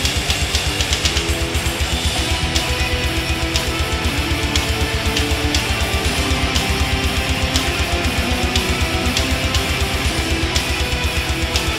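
Background music: guitar-led rock with a fast, steady low beat.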